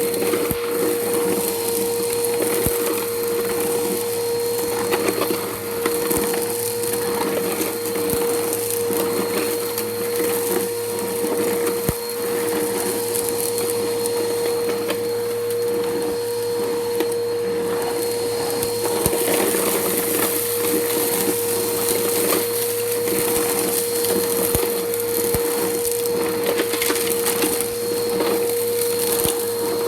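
Bissell Powerforce Helix upright vacuum running steadily with a constant motor whine, crackling and crunching as it sucks up grit and debris from a concrete floor.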